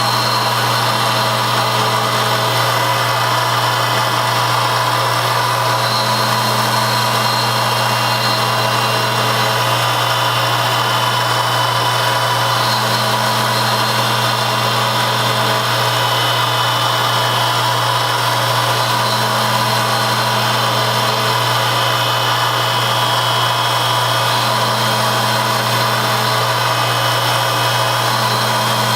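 Metalworking machine tool running with a steady motor hum. A second tone comes in for two or three seconds about every six seconds.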